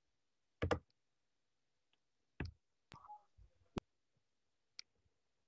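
A handful of brief, scattered clicks and small knocks, about five in all, with dead silence between them.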